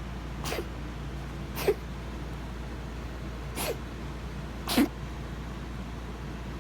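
Four short, sharp coughs in two pairs, about a second apart within each pair; the second of each pair is the louder.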